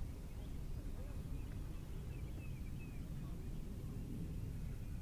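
Wind rumbling on the microphone, with faint bird chirps now and then.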